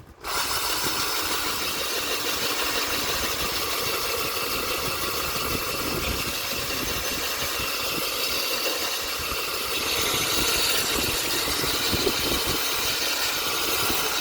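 Cordless drill spinning a diamond coring bit held straight up and down, grinding into wet tile. It starts abruptly just after the start and runs steadily, a little louder in the last few seconds.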